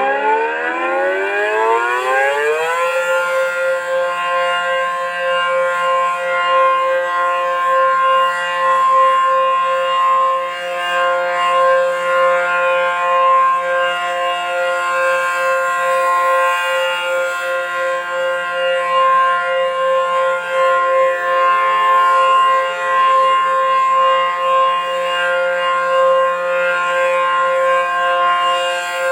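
WPS 4004 (Allertor 125) electronic warning siren sounding a steady alert: a chord of several tones rises in pitch for about the first three seconds, then holds steady.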